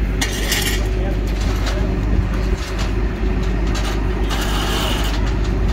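Diesel engine of a Kenworth T360 tilt-tray tow truck running steadily while it winches a damaged truck onto its tray, with short hisses near the start and again about four and a half seconds in.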